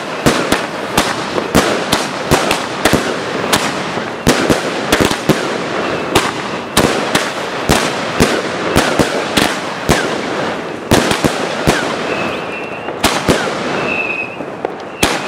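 Fireworks going off in rapid, irregular bangs and cracks, many overlapping, over a continuous crackling hiss. A couple of short high whistles come near the end.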